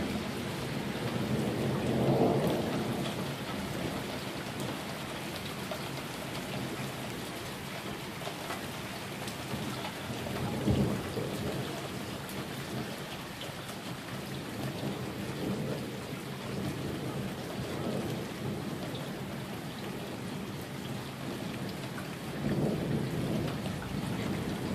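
Steady rain falling, with several low rolls of thunder rumbling through it; the loudest and sharpest comes about eleven seconds in.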